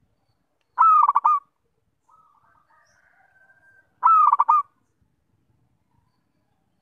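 Zebra dove (perkutut) cooing: two short phrases, each a quick run of clipped coos lasting under a second, about three seconds apart. A much fainter call sounds between them.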